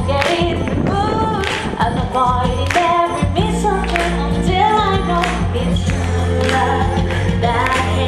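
A woman singing a Christmas pop song live over backing music with a steady beat and bass.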